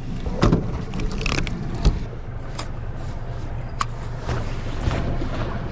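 Boat motor running low and steady, with scattered knocks and clicks of handling on board.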